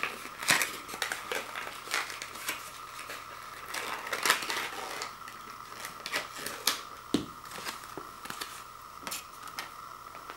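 Paper and cardboard tags crinkling and rustling as they are handled and a twist tie is worked off a cord, with many small irregular clicks and a dull knock about seven seconds in. A faint steady high hum sits underneath.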